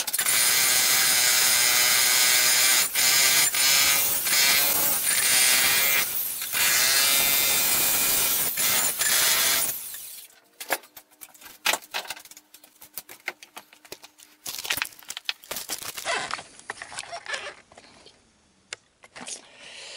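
Electric jackhammer hammering into a concrete floor in long, loud runs with brief pauses, then stopping about ten seconds in. After that come quieter scattered knocks.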